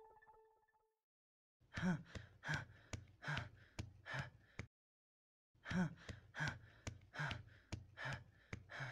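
A voice panting hard in short, quick voiced gasps, about three a second. There are two runs of around nine breaths each, with a pause of nearly a second between them, the effortful breathing of someone running.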